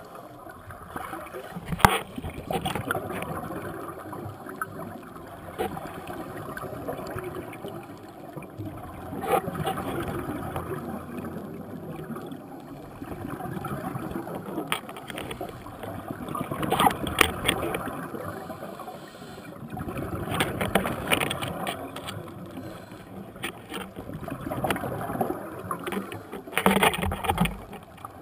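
Muffled underwater noise heard through a camera's waterproof housing: a scuba diver's regulator breathing, with rushes of exhaled bubbles that swell and fade every few seconds. A few sharp clicks, the loudest about two seconds in.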